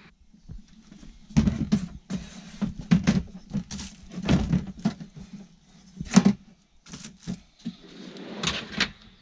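Lidded plastic storage tubs being set down, shuffled and slid into a plywood drawer: a string of knocks, scrapes and clatters, with the sharpest knocks about a second and a half, three and six seconds in.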